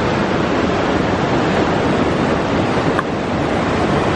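Fast mountain stream rushing over boulders: a loud, steady rush of water.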